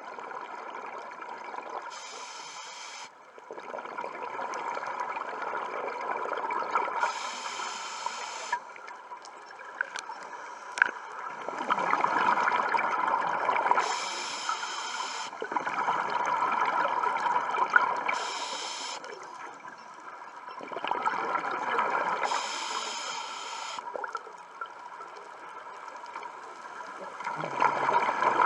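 Scuba diver breathing through a regulator underwater: a short hissing inhale every few seconds, each followed by a longer, louder rush of exhaled bubbles.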